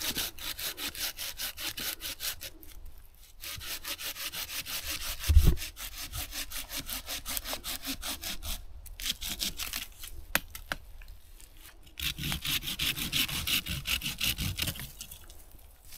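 Hand saw cutting firewood in quick back-and-forth strokes, with short pauses about three seconds in and around eleven seconds, stopping shortly before the end. A single low thump about five and a half seconds in.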